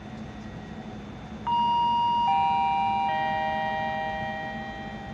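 Railway station public-address chime: three tones, each lower than the last, struck about a second and a half in and ringing on, the signal that a train announcement follows.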